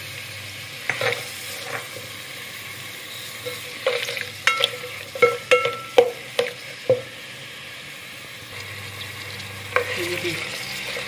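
Sliced onions sizzling in hot ghee in a metal pot, stirred with a plastic spatula that scrapes and knocks against the pot. The sizzle is a steady hiss; the spatula strokes come in a quick run about four to seven seconds in and again near the end.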